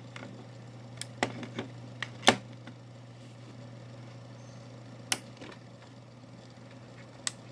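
Sharp plastic clicks from a small USB hub being handled, its port power switches flicked on and off. A cluster of clicks comes in the first two and a half seconds, the loudest about two seconds in, then single clicks around five and seven seconds in, over a steady low hum.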